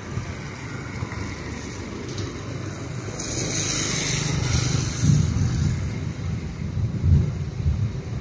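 A motorbike passing close by on a wet road: its engine and a hiss of tyres on water swell to their loudest about halfway through, then ease off.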